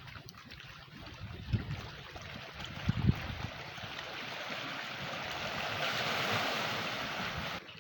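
Surf on a beach: a noisy wash of waves that swells to its loudest about six seconds in, with a few short low thumps earlier on.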